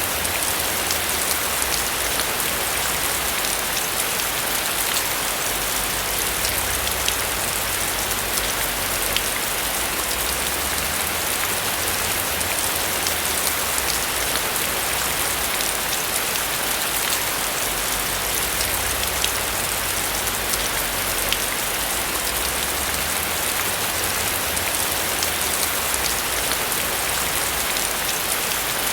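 Steady rain falling on a roof: a constant hiss dotted with many individual drop ticks, with a low rumble underneath.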